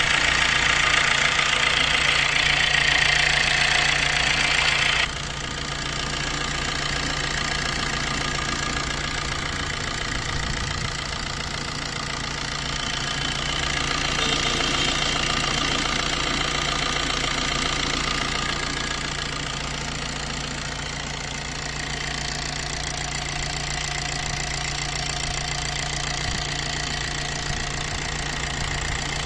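Maruti Suzuki Dzire engine idling steadily with a freshly replaced timing chain set; the sound changes abruptly about five seconds in, as at a cut between two recordings.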